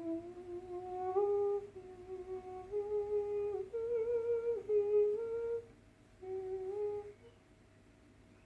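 A woman humming a short melody to herself, held notes moving mostly by step, as she tries out a line of the major-key tune she is writing. One longer phrase, a brief pause, then a short closing fragment near the end.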